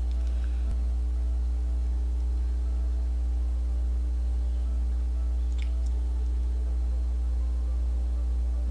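Steady low electrical hum, like mains hum in the recording, with faint steady higher tones over it. One faint click sounds about five and a half seconds in.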